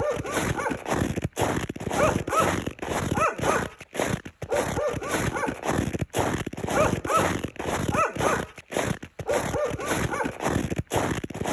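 Footsteps crunching in snow at a steady walking pace, about one step a second.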